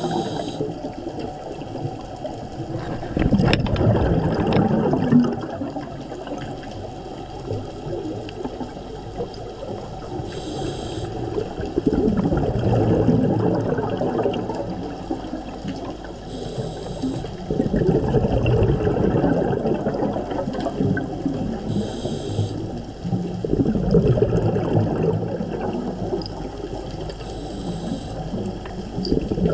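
Scuba diver's regulator breathing heard underwater: a short hiss with each inhalation, five in all, each followed by a rumbling, bubbling exhalation.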